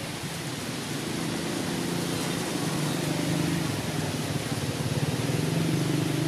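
An engine running, heard as a steady low hum that comes in about a second in and grows louder, over a steady hiss.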